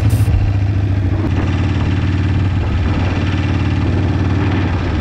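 Harley-Davidson motorcycle's V-twin engine running at a steady, even throttle while being ridden, heard from the rider's position on the bike.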